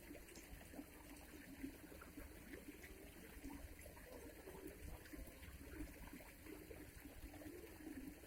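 Near silence: faint background ambience with a low steady rumble.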